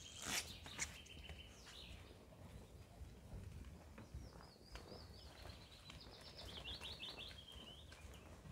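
A small songbird singing: a thin high trill for the first couple of seconds, then, from about four seconds in, a longer phrase of quick repeated notes that steps down in pitch. A few faint footsteps on the path near the start.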